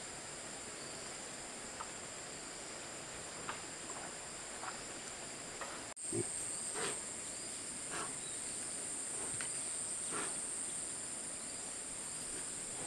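Insects in a steady high-pitched chorus, with scattered short clicks; the chorus jumps louder at a cut about six seconds in.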